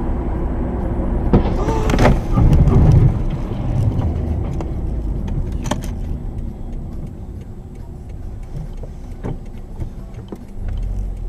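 A car driving on a highway, heard from a dash cam inside the cabin: a steady low road-and-engine rumble that is loudest about two to three seconds in, with a few sharp clicks or knocks scattered through.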